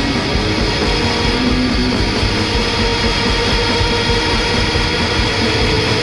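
Rock band music without vocals: a loud, steady, dense wall of distorted instruments in an instrumental stretch of the song.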